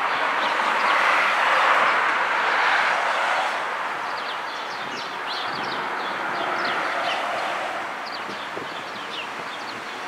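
Outdoor rushing noise, loudest over the first three seconds and swelling again briefly later, with many short, high chirps of small birds through the second half.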